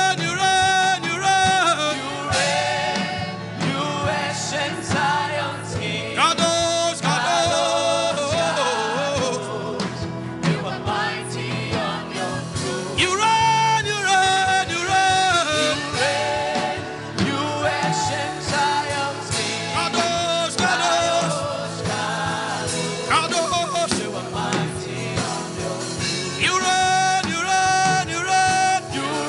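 Gospel worship song: a voice sings long, wavering held notes over continuous music.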